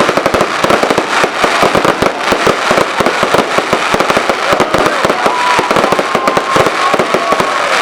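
Fireworks display: a dense, continuous barrage of rapid bangs and crackling, with a steady whistling tone held from about five seconds in to near the end.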